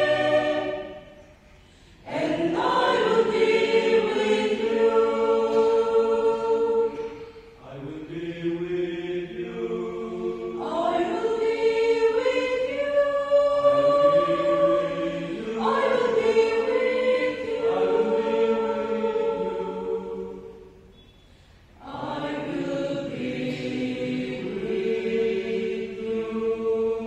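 Mixed-voice choir singing a hymn in parts, holding long chords phrase by phrase. The singing breaks off briefly twice, about two seconds in and again about twenty seconds in.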